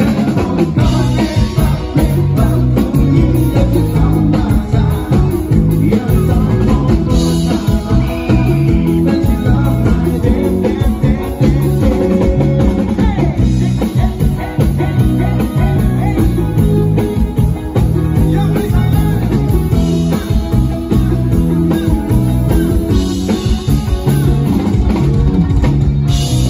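Live band playing loudly: drum kit, bass and electric guitar, with some singing, picked up by a phone's microphone.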